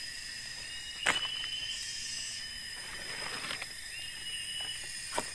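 Forest ambience: a steady high insect drone, with short high whistled calls recurring every couple of seconds and a sharp knock about a second in.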